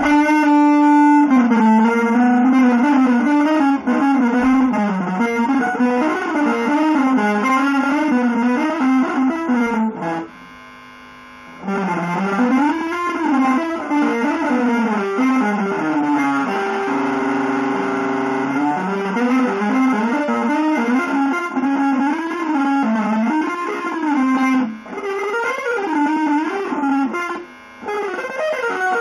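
Electric guitar through effects playing a legato single-note melody with slides and bends. It drops away briefly about ten seconds in, and later holds one long note.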